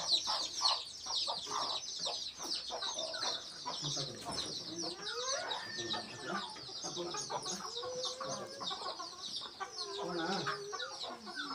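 A brood of many chicks peeping constantly, their short high downward-sliding calls overlapping without a break, with a mother hen clucking lower beneath them.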